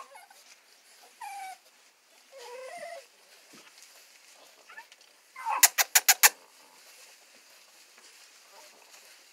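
Pit bull puppies whimpering in short, high whines that fall or waver in pitch. About halfway through, five sharp clicks come in quick succession, louder than anything else.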